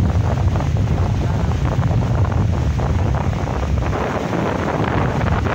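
Wind buffeting the microphone with a steady low rumble, over the wash of small sea waves breaking and running up a sandy beach.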